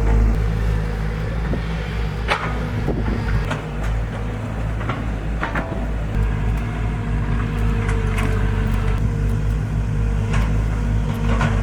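An engine running steadily at an even speed, with scattered clicks and knocks over it.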